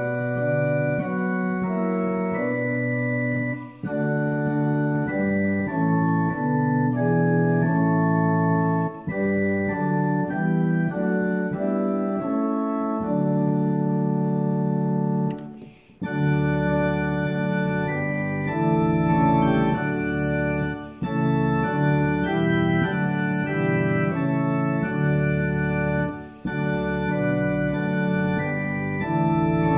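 Organ music: slow, sustained chords changing every second or so. It breaks off briefly about halfway through and resumes with deeper bass notes added.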